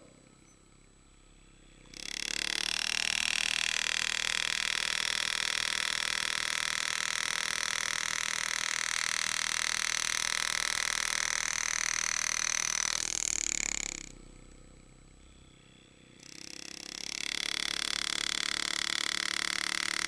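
Powered engraving handpiece driving a graver through 304 stainless steel while cutting shading lines, a steady buzz. It starts about two seconds in, stops for a couple of seconds around two-thirds of the way through, then starts up again.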